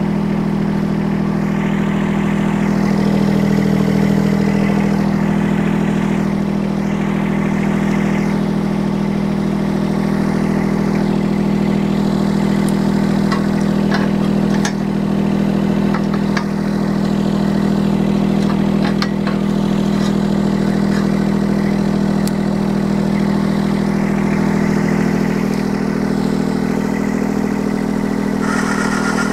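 Mini excavator engine running at a steady idle, with a few light clicks and knocks partway through.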